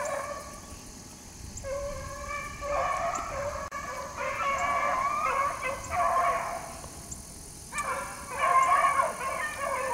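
A pack of rabbit hounds baying in chorus as they run a rabbit's track, many voices overlapping, easing off briefly about seven seconds in and then picking up again.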